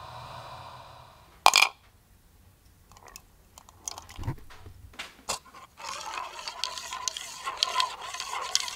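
A plastic mixing cup being handled as hydrochloric acid is poured over a rusty pin and swirled. A sharp knock comes about a second and a half in, then scattered clicks and scrapes that thicken into a dense crackle over the last few seconds.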